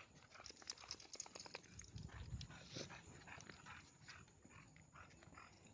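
Faint rustling and footsteps of dogs moving about, with a cluster of quick clicks in the first second and a half.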